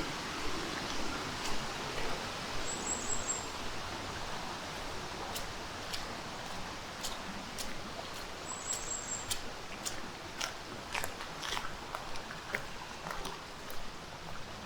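Footsteps on a gravel forest trail, an irregular run of crunching steps over a steady background hiss, with two brief high chirps about three and nine seconds in.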